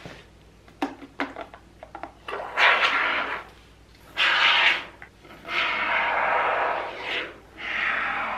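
Can of expanding spray foam hissing in four spurts as foam is sprayed into the cracks of a tyre, after a couple of light clicks of handling.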